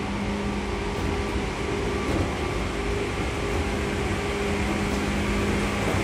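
Seibu 2000 series electric commuter train running, heard from inside the car: a steady rumble of wheels and running gear, with a low electrical hum that fades out about a second in and comes back near the end.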